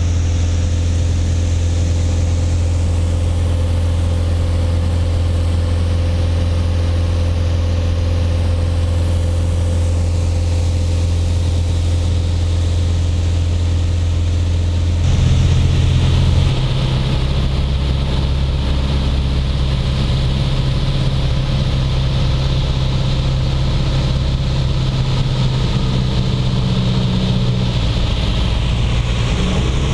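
Engine and propeller of a small single-engine plane droning steadily in flight, heard inside the cockpit as a loud low hum. About halfway through, the tone of the drone changes abruptly to a lower, rougher hum.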